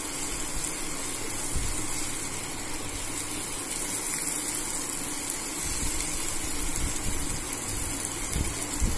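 Batter-coated rohu fish steaks shallow-frying in a little oil in a pan: a steady sizzle.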